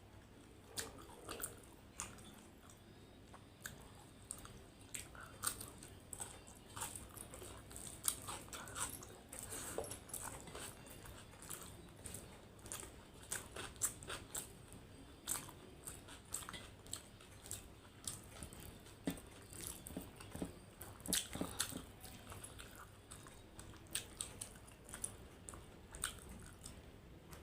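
A person eating close to the microphone: irregular sharp clicks and smacks of biting and chewing through a meal of chicken, rice and salad, running on without pause.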